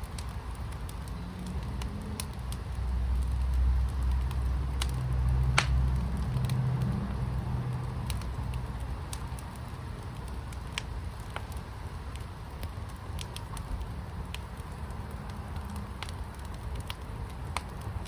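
Fire burning in a fire pit, crackling with scattered sharp pops. Under it a low rumble swells about three seconds in and eases off by about eight seconds.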